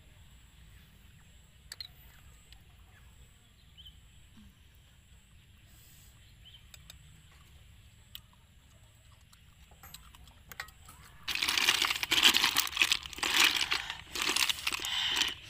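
Hand rummaging through a heap of cooked snails in a metal tray, the shells clattering and rustling loudly from about three-quarters of the way in. Before that only a few faint clicks are heard.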